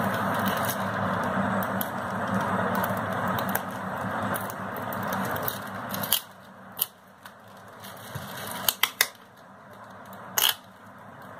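Plastic packing-slip sleeve and packing tape crinkling as they are peeled off a cardboard parcel: a continuous rustle for about the first half, then a few sharp crackles.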